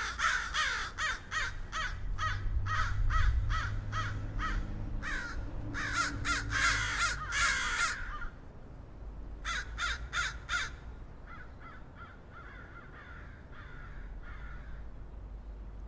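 A flock of crows cawing, many harsh calls overlapping in quick runs, thinning out and growing fainter after about eight seconds, with a few calls near the end.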